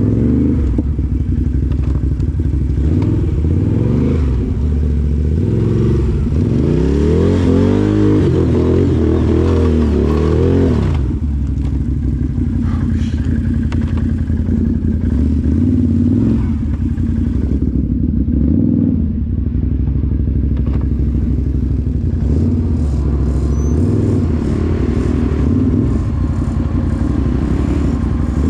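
Can-Am 1000cc off-road vehicle's engine running under load on a trail, revving up and down several times as the throttle is worked.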